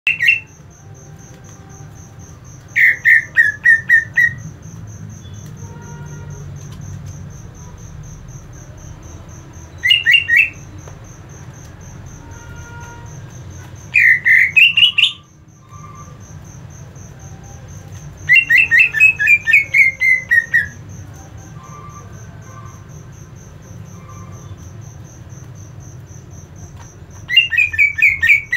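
Caged male cucak ijo (green leafbird) giving its agitated 'ngentrok' call: short bursts of quick repeated notes, six bursts a few seconds apart, the longest about two seconds. A steady fast, high ticking and a low hum run behind it.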